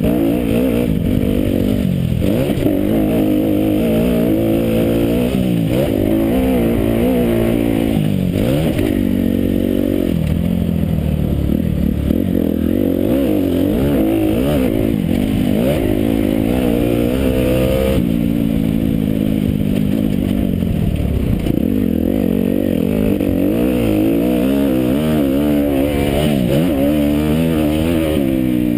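Motocross bike engine revving hard and easing off over and over as the bike is ridden round a dirt track, heard close up from on the bike. The pitch climbs and drops again every second or two as the rider accelerates, shifts and slows.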